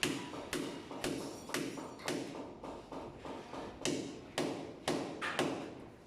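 Steady hammering: about a dozen sharp strikes, roughly two a second, each with a short ring, as the plumber opens up around a hidden pipe.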